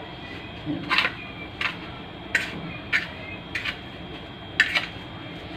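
Fork pushing chicken pieces through breadcrumbs and scraping on a ceramic plate: about seven short, scratchy strokes with pauses between them.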